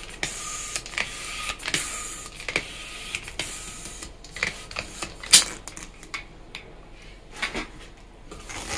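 Hand balloon pump inflating a long 260 twisting balloon: air rushes through the pump with each stroke, a stroke a little under every second for about four seconds. A sharp click about five seconds in, then quieter handling noises.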